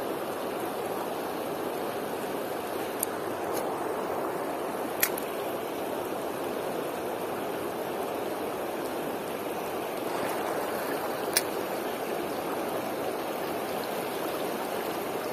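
River water rushing steadily over a fast current, with a few sharp clicks, the loudest about five seconds in and again near eleven seconds.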